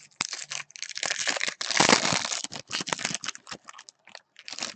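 Foil wrapper of a jumbo baseball card pack crinkling and tearing open. It is a run of crackles with the loudest, densest tearing about two seconds in, thinning to scattered crinkles near the end.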